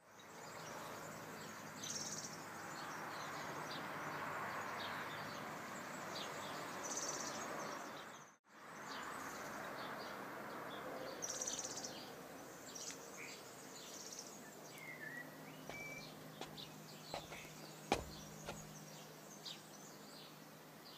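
Outdoor street ambience: a steady noise of street traffic with birds chirping, cut off abruptly about eight seconds in and then resuming. In the second half it is quieter, with scattered bird chirps, a low hum and one sharp click near the end.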